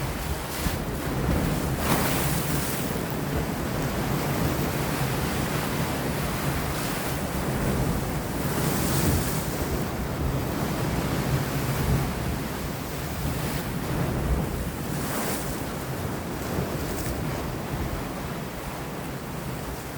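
Sea waves washing against rocks, with wind blowing over them: a steady surf rush, and a few brief splashes standing out above it.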